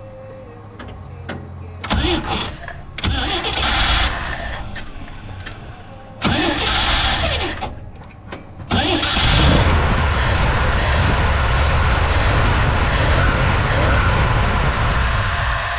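1968 Jeep Gladiator engine being cranked in short bursts on the starter, then catching about nine seconds in and running steadily. It is being restarted after its flooding carburetor's float needle and seat were cleaned.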